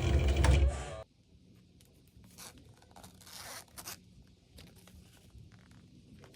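Loud music that cuts off suddenly about a second in, then a few short, faint zipper pulls: the repaired zipper of a Chanel wallet being run along its track.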